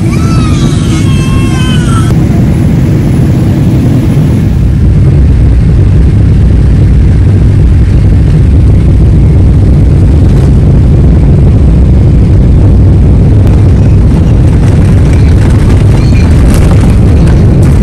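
A cat meows once in the first two seconds, then a loud, steady low rumble of a moving vehicle that gets louder about five seconds in.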